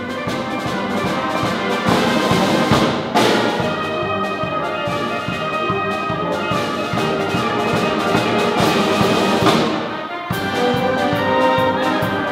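Military concert band playing: brass and saxophones over a drum kit, with a strong accent about three seconds in and a brief dip near ten seconds before the full band comes back in.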